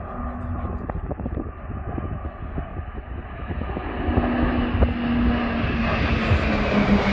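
RAAF Pilatus PC-21 turboprop trainers in formation flying toward the microphone. The engine and propeller drone grows louder from about four seconds in, and its pitch starts to drop near the end as the aircraft pass.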